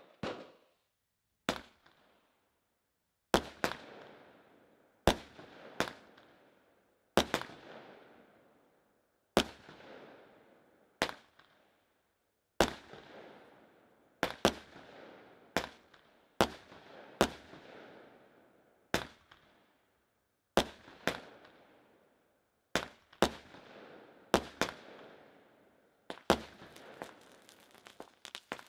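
Weco Columbus 92-shot fireworks cake firing, a sharp shot about every second, often two in quick succession, each one trailing off. Near the end the shots come faster in a rapid run of pops.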